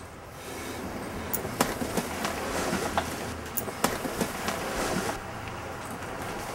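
Footsteps along a school bus aisle, sharp knocks about two a second for a few seconds, over the bus's steady low rumble.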